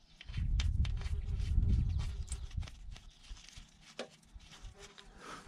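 Low rumbling noise on the microphone for about the first three seconds, then a few faint clicks as a bolt is threaded by hand into the manual transmission case.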